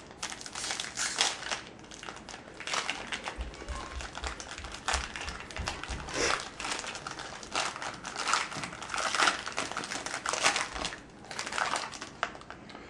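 Plastic-foil wrapper of a pack of trading cards crinkling and rustling as it is torn open and the cards are handled, with a few dull knocks a few seconds in.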